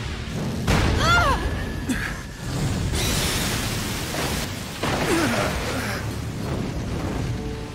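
Anime battle sound effects: dense crashing and rumbling noise that changes abruptly a few times, with a short vocal grunt about a second in.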